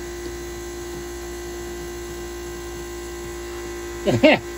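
Small transfer pump running with a steady hum, drawing coolant-contaminated oil out of a diesel engine's oil pan through a hose into a jug. About four seconds in comes a brief, louder pitched sound that swoops up and down.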